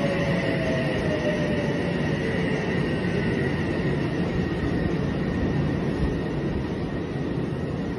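Electric commuter train pulling into the platform and slowing. There is a steady rumble of wheels on rail, and a whine falls slowly in pitch as the train brakes.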